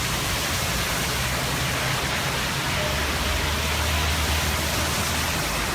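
Heavy rain falling: a steady, even hiss with a low rumble underneath.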